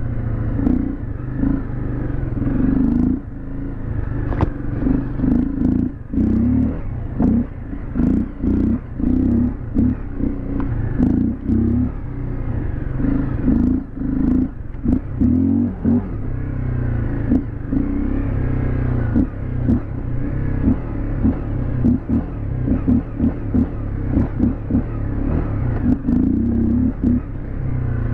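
Dual-sport motorcycle engine running at low trail speed, the throttle opening and closing every second or so. Short knocks and clatter come from the bike jolting over bumps.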